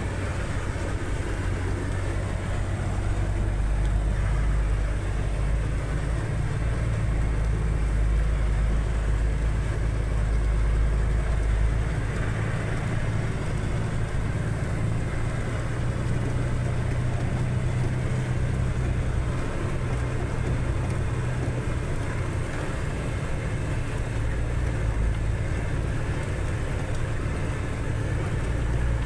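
Vehicle engine running steadily, a continuous deep drone.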